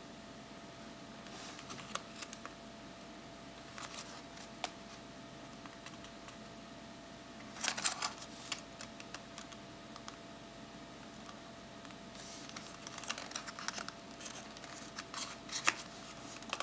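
Paper airplane of folding paper rustling and crinkling as hands handle and crease it, in scattered crackles with the loudest burst about eight seconds in. A faint steady hum runs underneath.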